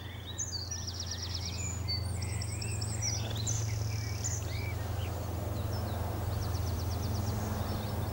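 Songbirds singing, with rapid high trills typical of a wren, over a steady low hum.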